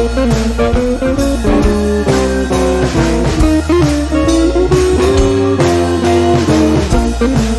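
Background music: a blues-rock track led by electric guitar over bass and drums with a steady beat.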